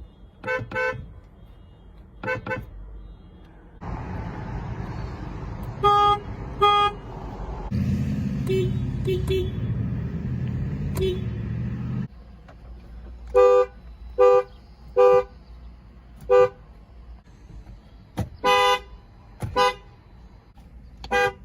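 Car horn giving about a dozen short toots, each sounding two tones together, in a string of separate clips. A steady low rumble fills a few seconds in the middle.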